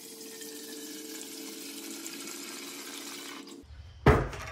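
Evaporust rust remover pouring from a jug through a plastic funnel into the empty steel fuel tank of a 1954 Allis-Chalmers WD45: a steady splashing pour with a low ringing note from the tank, stopping about three and a half seconds in. A single loud knock follows near the end.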